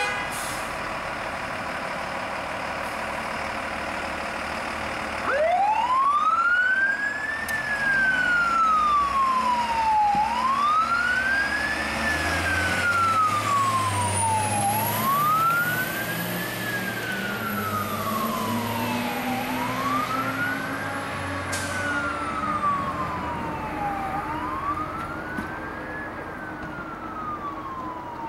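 Fire truck siren in wail mode. It comes on about five seconds in and sweeps up and down about every four and a half seconds, over the rumble of the truck's engine as it pulls away.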